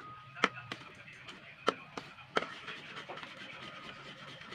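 Utensil stirring a thick coconut-milk and cornstarch pudding mixture in a metal wok, scraping the pan with several sharp knocks against its side. The loudest knock comes about half a second in, with others about a second and a half and two and a half seconds in.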